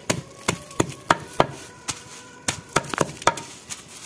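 Hand blade chopping green fodder grass against a wooden log: a quick run of sharp chops, about three a second with uneven spacing.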